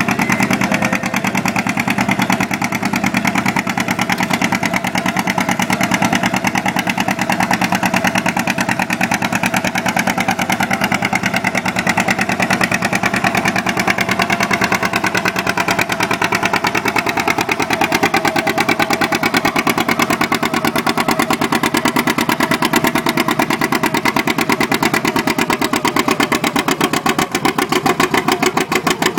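1948 John Deere A's two-cylinder engine running hard while pulling under load, with a rapid, even firing beat.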